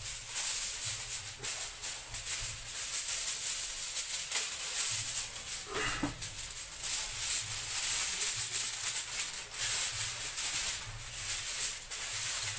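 Aluminium foil crinkling and rustling as a large sheet is handled and folded, in uneven crackly surges.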